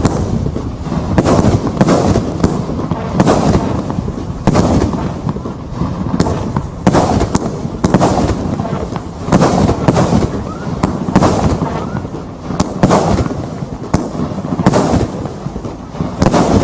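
Tai Pan Rio Grande 80-shot firework cake firing its barrage: a continuous run of launches and bursting bangs, a loud one about every second, over a constant rumble.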